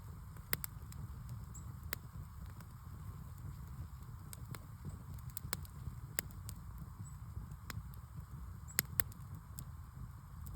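Fire crackling: irregular sharp pops and snaps, a few louder than the rest, over a steady low rumble.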